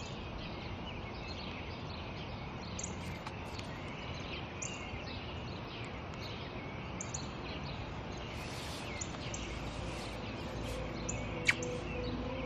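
Small birds chirping on and off over a steady, quiet outdoor background hiss, with one sharper, louder chirp near the end.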